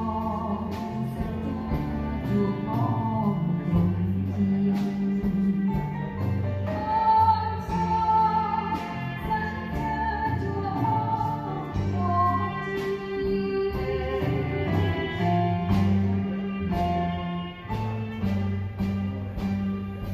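A woman singing a Khmer song live with a small band of keyboard, guitar, drum kit and violin, over a steady drum beat.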